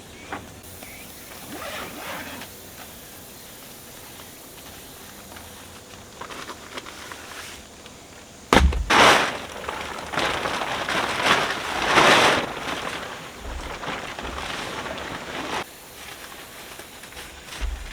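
One-touch pop-up tent being set up: about halfway through, the frame springs open with a sudden loud pop, followed by several seconds of rustling and shaking nylon fabric that stops abruptly.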